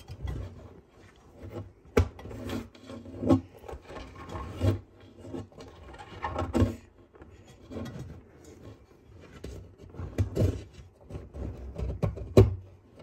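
A sulcata tortoise's shell scraping and knocking against a plywood wall as the tortoise shoves against it, in irregular rubs with sharp knocks now and then.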